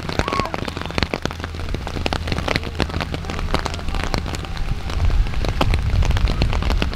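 Rain falling, with many irregular drops tapping close to the microphone. A low wind rumble on the microphone grows stronger about five seconds in.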